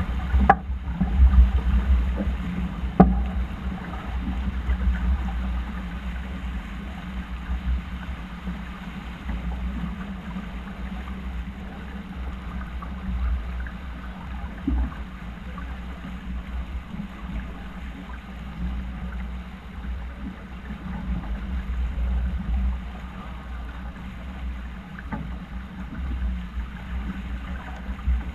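Wind rumbling on the microphone aboard a racing yacht under way, with water rushing along the hull. A sharp knock comes just after the start and another about three seconds in.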